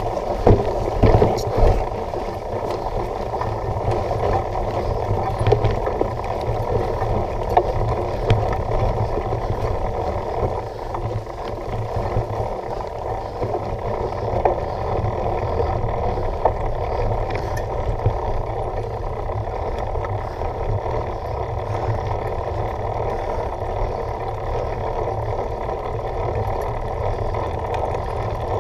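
Steady rumble and rattle of a mountain bike rolling over a dirt trail, with wind buffeting the microphone of the rider's camera. A few louder knocks come in the first two seconds.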